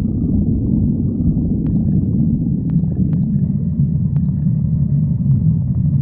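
Stomach growling: a steady low rumble with a few faint clicks.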